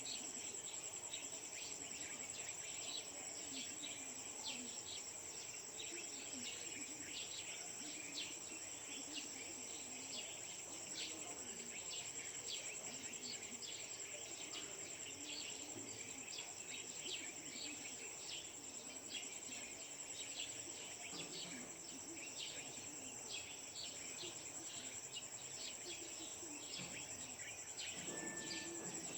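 Dawn chorus: a steady high-pitched insect drone under many short, quick bird chirps, with one brief flat whistled note near the end.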